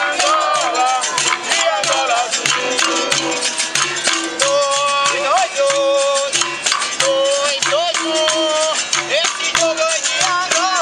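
Capoeira Angola roda music: berimbaus, musical bows struck with a stick and shaken with caxixi basket rattles, playing a steady repeating rhythm, with a voice singing over them.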